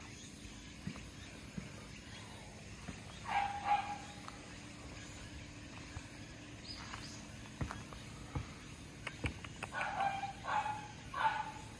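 An animal calling: one short call about three seconds in, then three quick calls about half a second apart near the end. A few sharp clicks come just before the last three calls.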